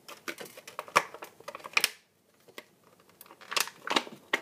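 Plastic toy packaging being handled and pulled apart: a run of sharp clicks and crackles, a short pause about two seconds in, then more clicking near the end.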